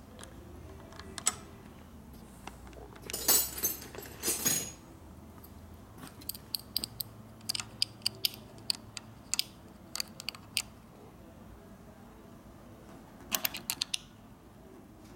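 Small metal clicks and clinks of a hand wrench working the nut at the front brake lever pivot on a motorcycle's handlebar master cylinder, as the lever free play is set so the brake fully releases. The clicks come irregularly, in runs, with a louder clattering rustle about three to four seconds in.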